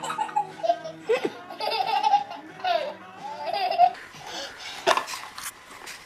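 A baby laughing hard in a string of repeated bursts, with a sharp knock about five seconds in.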